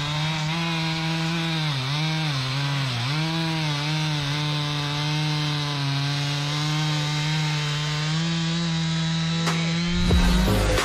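Small engine running at a high, steady speed, its pitch dipping briefly three times about two to three seconds in. Near the end the steady note stops and gives way to irregular heavier knocks.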